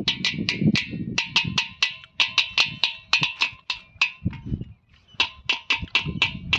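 Dholak played in a quick, even rhythm of sharp slaps, about five strokes a second, with deeper bass-head strokes underneath; the playing thins out briefly a little past the middle, then picks up again.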